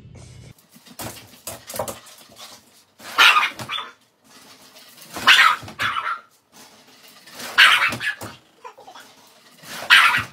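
Dogs barking in four loud bursts about two seconds apart, with softer yips and noises between.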